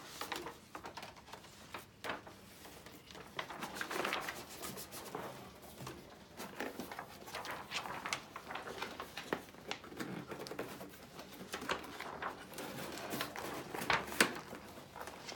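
Handling of gift-wrapping paper and white cardboard boxes: large paper sheets rustle and crackle as they are lifted and shaken out, with taps and scrapes from box lids and flaps. There is an irregular run of short crackles, the sharpest about a second before the end.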